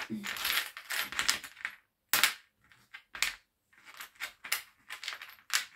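Small metal divination charms clinking against each other and scraping on a tray as fingers spread and turn them over, in many irregular clicks.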